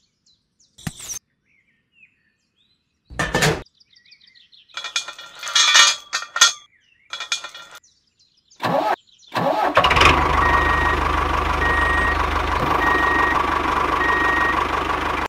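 Several short bursts of sound cut off by stretches of dead silence, then from about ten seconds in an engine running steadily at idle with a low hum.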